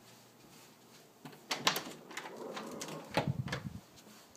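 A handful of sharp clicks and knocks over about two and a half seconds, with a short low rumble near the end.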